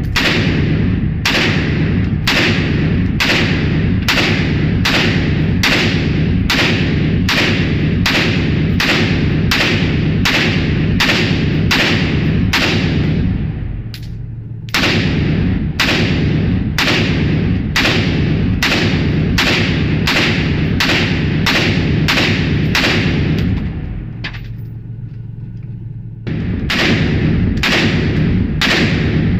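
A 5.56 mm CW56 rifle firing shot after shot in a steady rhythm of about two a second. There is a brief pause about fourteen seconds in and a longer pause of about two seconds near twenty-four seconds.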